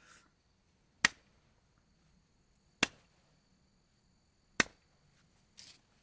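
Three sharp, evenly spaced clicks, each about a second and three quarters after the last, with a faint hiss just at the start and again near the end.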